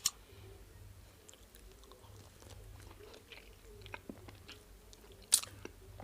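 A person eating starch with black soup close to the microphone: soft chewing and small wet mouth clicks, with a sharp click at the start and a louder one about five seconds in.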